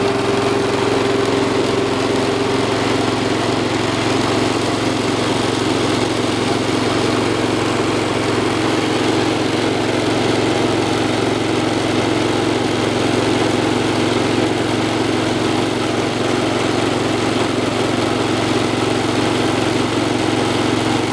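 The Kohler single-cylinder engine of a Cub Cadet 1450 garden tractor running steadily at an even speed, freshly refilled with SAE 30 oil.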